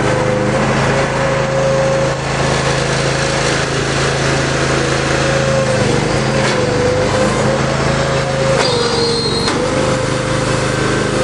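Small gasoline engine running a compressed earth block machine at a steady speed, its pitch dipping briefly twice as it takes load. A few sharp clicks and a short high whine sound during the second dip.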